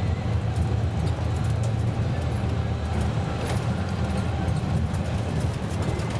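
Inside the cabin of a Karosa C954E intercity bus driving at a steady speed: a continuous low engine drone over tyre and road noise, with a few light clicks and rattles.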